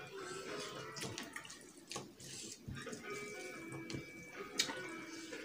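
Fingers mixing and scooping rice and curry on steel plates: wet squishing with a few sharp clicks against the metal, over faint background music.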